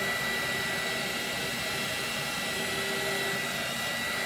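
Handheld craft heat tool blowing steadily over wet colour on a canvas to dry it: an even rush of air with a constant high whine.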